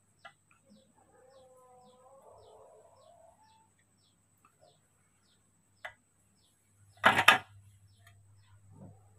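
Faint high chirps of a small bird, about two a second, with a soft wavering pitched sound in the first few seconds. About seven seconds in comes a sudden, much louder burst of noise with two quick peaks, like a knock or rustle.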